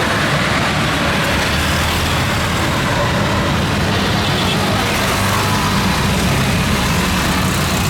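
Steady, loud jet engine noise from a large airliner, a constant low hum under an even rushing noise.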